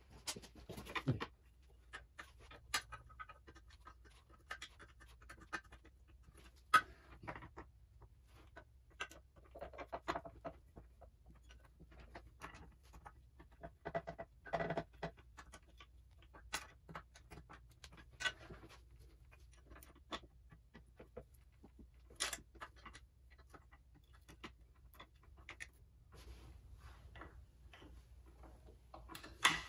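Scattered small clicks, taps and scrapes of hand work on an outboard motor's metal lower unit and midsection, with a faint steady hum underneath.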